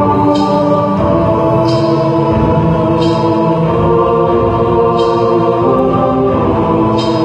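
Ominous choral chanting music with held, droning chords, and a soft high accent every second or two.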